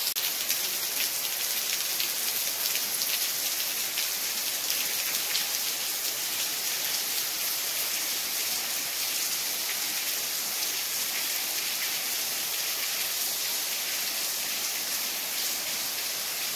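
Heavy monsoon rain pouring down steadily, with a dense patter of drops.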